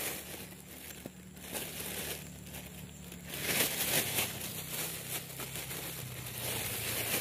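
Thin clear plastic bag crinkling in several short bursts as it is handled and opened.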